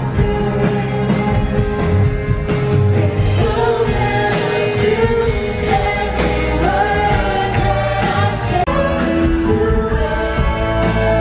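Pop-style worship song: a sung melody over a band with steady bass and regular drum hits.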